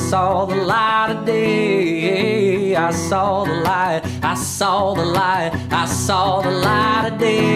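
A man singing to his own strummed acoustic guitar, his voice sliding between held notes over steady guitar chords.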